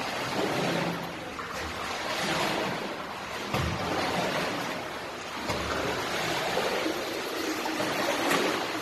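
Splashing of a child swimming across a pool, the arm and leg strokes churning the water in uneven surges.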